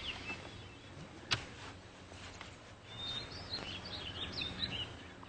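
Birds chirping, with a run of quick calls about three seconds in, over faint outdoor background noise. One sharp tap a little over a second in.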